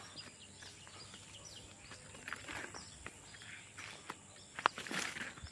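Quiet rural field ambience with faint, scattered bird chirps. Footsteps and rustles on dry soil, the loudest a short scuffing rustle near the end.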